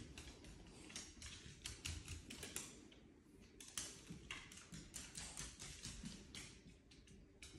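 Faint, irregular clicking of dogs' claws on a hardwood floor as two dogs trot about.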